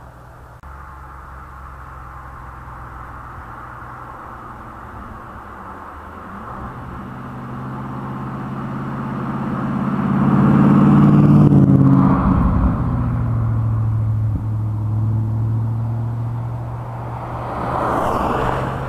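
BMW E30's M60B40 V8 running through its custom dual stainless exhaust with X-pipe and Powersprint mufflers. The low exhaust note grows louder from about six seconds in and is loudest around ten to twelve seconds, then settles into a steady low drone and swells again near the end.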